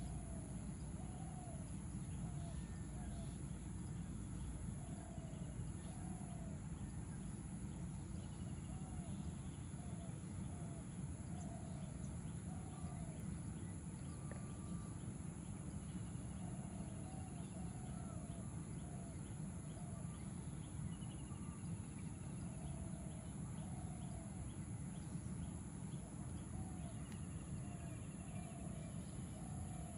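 Outdoor ambience with no speech. A bird gives short, repeated calls, about one a second, over a steady low rumble and a steady high insect drone.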